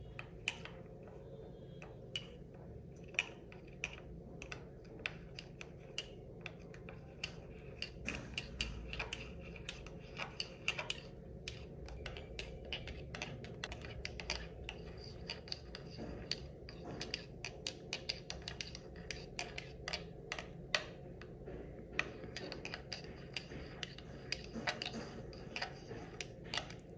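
Metal spoon stirring milky coffee in a ceramic cup, clinking against the cup's sides in many quick, irregular ticks.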